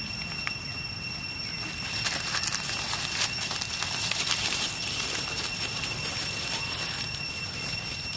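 Dry fallen leaves crackling and rustling as monkeys move and forage in the leaf litter, busiest from about two to five seconds in, over a steady high-pitched whine.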